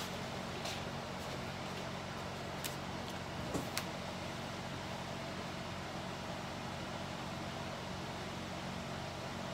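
Steady low machine hum and hiss of a running kitchen appliance or fan, with a few light clicks and taps within the first four seconds.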